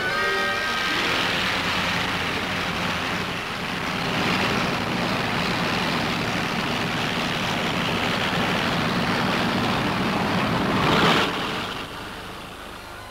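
Twin-engine piston propeller airliner running as it taxis, a steady drone that swells about eleven seconds in and then drops away sharply near the end.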